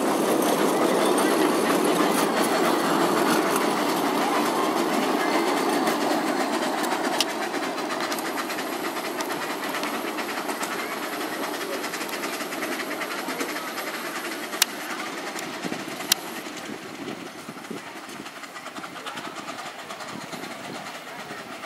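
Miniature ride-on steam train and its passenger cars rolling past on a narrow-gauge track, the steady rumble of wheels on rail fading as the train moves away. A few sharp clicks stand out about 7, 14.5 and 16 seconds in.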